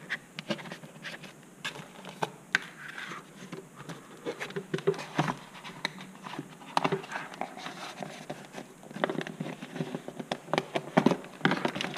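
Handling noise from a foam flying wing as a servo lead is pulled back out through it: scattered light scratches, rustles and small clicks of wire and plastic against foam, coming in uneven bunches.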